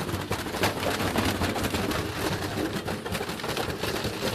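Washing machine running hard, with loud, irregular rattling and knocking over a steady low hum.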